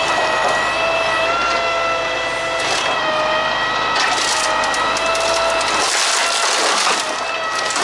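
Truck-mounted crane running, with a steady hydraulic whine that shifts slightly in pitch as the scrap grapple is worked. A few sharp cracks of pallet wood breaking as the grapple's tines bite into the pile.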